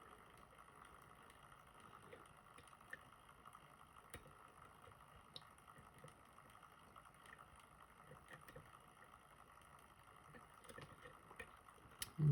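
Faint, scattered clicks and ticks of lock picks working the pins inside a Nagasawa high pin count pin-tumbler lock, over a steady faint hum.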